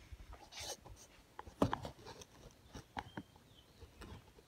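Light rustling and scattered clicks of nylon webbing straps and plastic buckles being handled, the sharpest click about a second and a half in.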